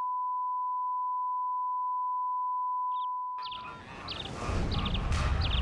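A steady test-tone beep, the reference tone that goes with colour bars, holds one pitch and fades out about three and a half seconds in. Birds then start calling, with short high chirps repeated several times, over a low rumble.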